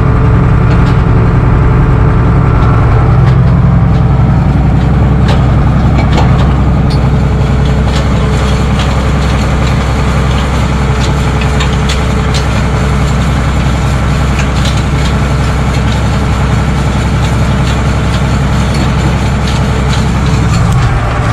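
Case tractor engine running steadily under load while pulling a spiked hay-field aerator, heard from inside the cab, with scattered light knocks and rattles.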